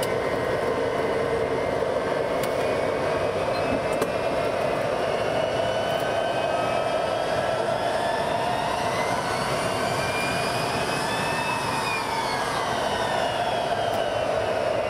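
Boeing 707's Pratt & Whitney JT3D-7D turbofan engines running, heard from the cockpit: a steady jet rush. Over it, a whine of several tones rises from about six seconds in and falls again after about twelve seconds.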